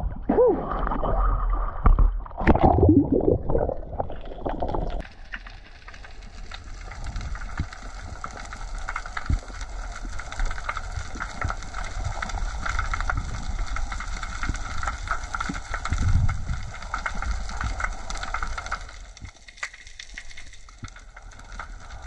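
Seawater gurgling and sloshing at the surface for about five seconds, then the camera goes under and there is a steady, muffled underwater hiss with faint crackling.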